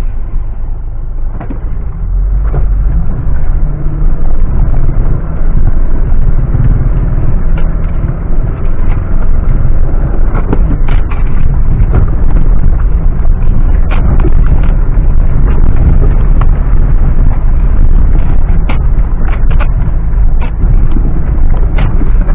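Mitsubishi Pajero driving off-road: a very loud, heavy rumble from engine and rough ground, with frequent sharp knocks and rattles as the body and suspension take the bumps, more of them in the second half.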